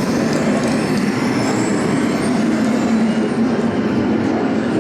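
A loud, steady rumble, even throughout.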